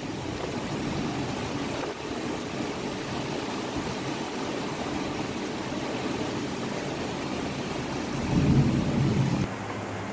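Heavy monsoon rain falling steadily, a continuous hiss. About eight seconds in, a low rumble swells for a second or so, then the sound changes abruptly.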